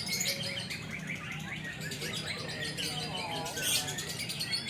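Lovebird singing a long, unbroken string of rapid high chirps and chatters, the continuous 'ngekek' song judged for its duration.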